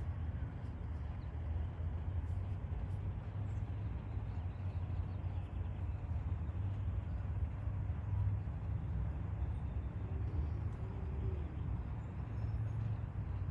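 Steady low outdoor rumble, with no distinct event standing out over it.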